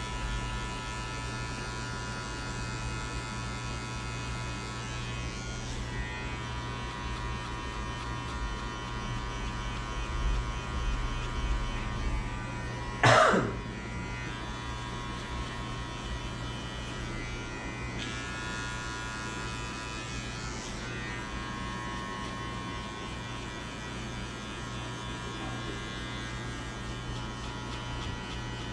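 Electric hair clippers running steadily while cutting a fade, their buzz shifting slightly a few times. About halfway through, a short, loud sound falls quickly in pitch.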